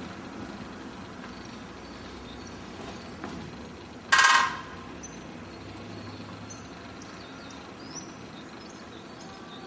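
Woodpecker drumming on a metal street lamp: one burst of rapid strokes about four seconds in, lasting about half a second, with a ringing metallic tone. A steady background hum runs underneath.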